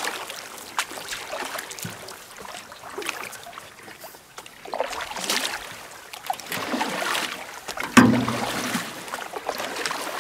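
Canoe paddle strokes: water swishing and dripping off the paddle blade in slow swells every couple of seconds, with one sharp thump about eight seconds in.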